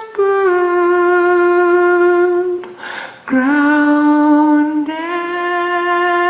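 Music: a voice sings long, held wordless notes, sliding slightly into each one, with a short breath about three seconds in.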